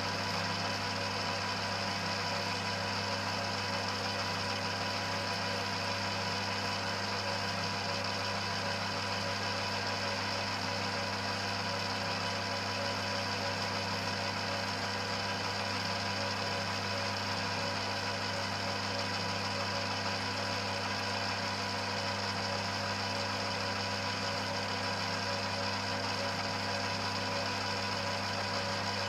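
1940s Colchester lathe running steadily: an unchanging hum with several steady tones over it, one of them high.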